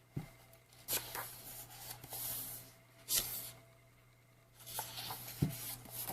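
Pages of an album's photobook being turned and handled: several short paper swishes and rustles, with a soft low thump near the start and another about five seconds in.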